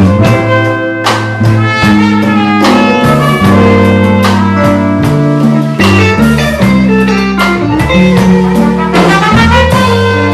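Live band playing an instrumental funk passage: bass and guitar with horns over a steady drum beat.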